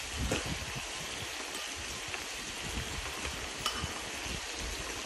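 Beef and vegetables sizzling steadily in a frying pan over a portable gas burner, with a few faint clicks.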